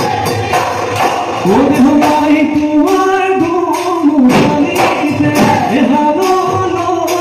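Live Bihu music: Assamese dhol drums beaten in a quick, steady rhythm, joined about a second and a half in by a melody of held notes that step up and down.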